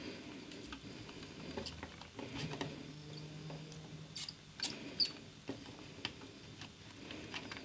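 Faint scraping and scattered light clicks of a soldering iron and tools working at a metal clamp soldered to a can capacitor's base, as it is being desoldered.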